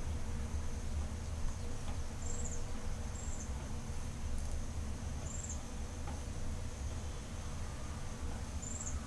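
A steady low hum, with four short, high chirps scattered over it.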